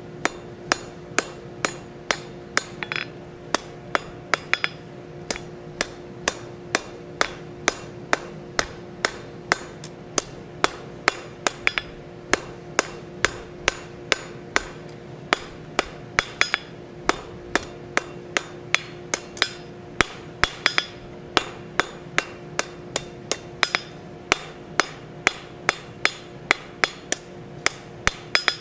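Blacksmith's hand hammer striking a red-hot iron bar on the anvil, about two blows a second, each blow ringing briefly. The bar's end is being rounded off and dressed.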